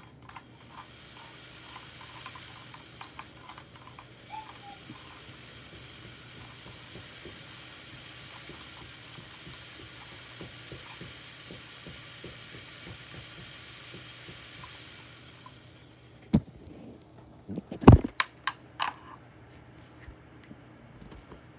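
Small electric motor of a LEGO jet-engine model running with a steady high hiss-like whir, which winds down about fifteen seconds in. A few sharp knocks and clicks follow, the loudest about eighteen seconds in.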